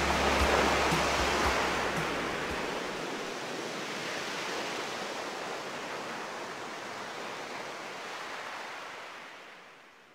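Rushing noise of ocean surf under the last notes of the song's bass and beat; the music stops about two and a half seconds in, and the surf fades slowly away.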